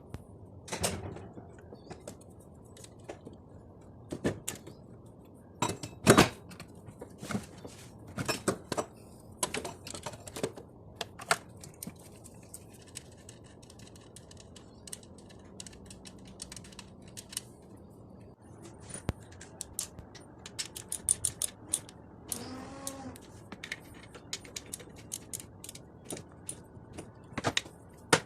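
Hand tools clicking and clinking on metal in irregular strokes, with a quick run of rapid clicks about twenty seconds in, during work on a car's alternator.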